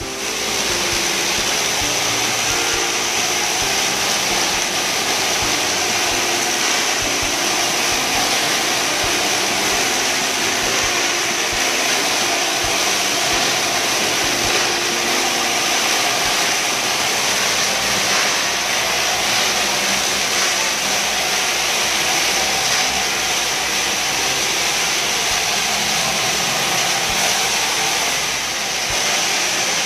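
Hard-floor spinner cleaning tool running on tiles with its extraction machine: a loud, steady rush of suction and water spray with a high whine on top. The spinning head is scrubbing off the residue of a badly applied impregnating sealer.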